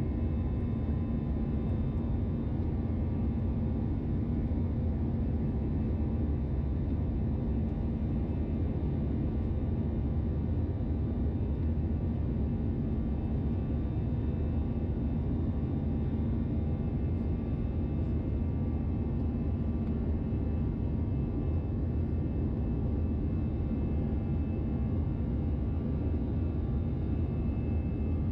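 Airbus A321-211's CFM56 jet engines and the airflow, heard inside the cabin as a steady drone during the climb, with a constant low hum.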